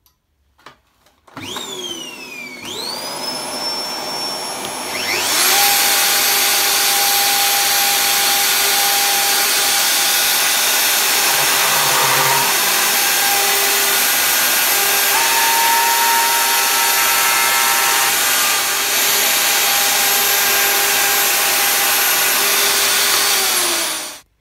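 DeWalt 1/2-inch router with a 10 mm carbide end mill spinning up about a second in with a rising whine, then milling aluminium plate. It is louder and steady from about five seconds in, a high whine over cutting noise, taking shallow passes of about 0.5 mm in a pocket, and cuts off just before the end.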